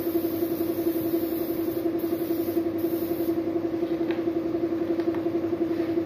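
Air compressor running steadily with a fast pulsing hum, under the hiss of a paint spray gun that sprays in short bursts and stops a little over three seconds in.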